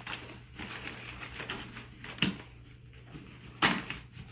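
Cardboard box and packing being handled as a heavy subwoofer is worked out of it: scraping and rustling with a few sharp knocks, the loudest about two seconds in and again near the end.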